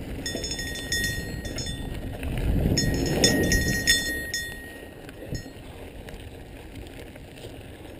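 Santa Cruz Tallboy 29er mountain bike rolling fast on a dirt trail: tyre and wind rumble, louder in the first half, with two spells of bright metallic chiming and jingling as the bike jolts over the ground.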